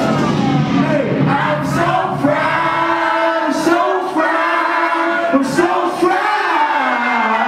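Music with sung vocals, several voices gliding in pitch together.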